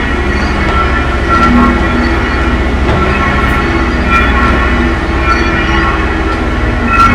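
Church bells being rung one after another in a continuous peal, their ringing tones overlapping and struck again every fraction of a second.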